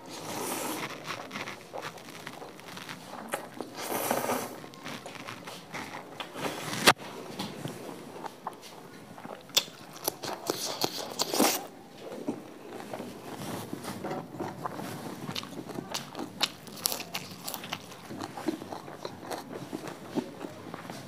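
Close-miked eating of spicy dry instant noodles: slurping and chewing noodles and crunching bites of fresh lettuce leaf, with many small clicks. A single sharp click about seven seconds in is the loudest sound.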